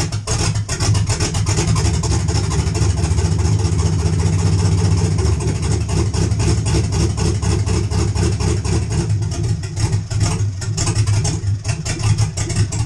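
4.8-litre LS V8 with no exhaust at all and an aggressive cam, running loud with a fast choppy pulse on a bit of held throttle, dipping briefly about ten seconds in. Without that throttle it cannot hold an idle: the stock factory computer isn't tuned for the cam, heads and intake, and it lacks fuel at idle.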